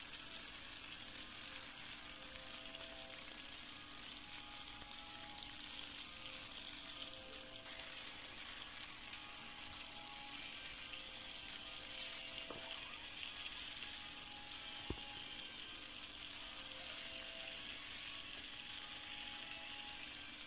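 Flour-dredged fish frying in a pan of hot oil, a steady sizzle throughout, with one light click near the end.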